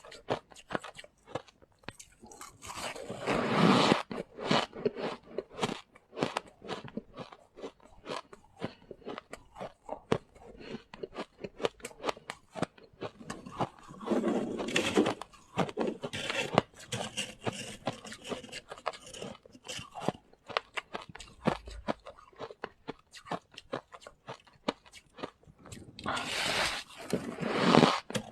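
Close-up eating of freezer frost: dense, rapid crunching and chewing, with three longer, louder crunching bites about 3, 14 and 27 seconds in.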